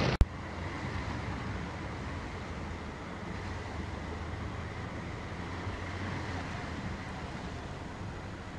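A sharp click about a quarter second in, then the steady rush of heavy rain and floodwater heard from inside a car, over a low engine hum.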